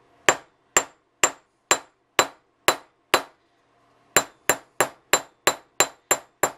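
Ball-peen hammer tapping the clipped end of a carpet-tack nail on a steel anvil block, peening it into a mushroomed rivet head. Light metallic taps with a short ring, about two a second, then after a pause of about a second a quicker run at about three a second.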